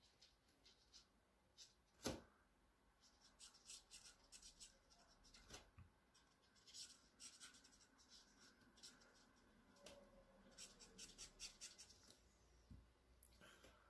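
Faint scratching of a black marker pen's tip on paper, drawing quick short strokes in little clusters, with one sharper tap about two seconds in.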